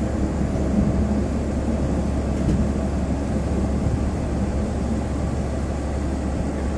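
Steady low rumble of a boat underway, its engines running, with wind buffeting the microphone.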